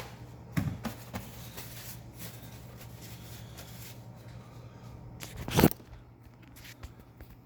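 Paper towel rustling as greasy hands are wiped clean, with a few small clicks and one sharp knock about five and a half seconds in, over a steady low hum.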